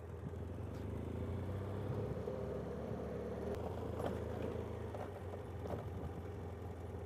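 BMW F800GS parallel-twin motorcycle engine running steadily as the bike rolls along a dirt track, with a few faint ticks over it.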